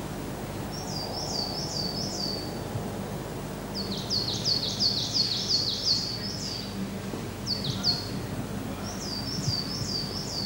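Songbirds singing in the woods: bouts of quick, high, down-sliding chirps, four or five in a row, repeated several times and briefly overlapping in the middle, over a steady low background hum.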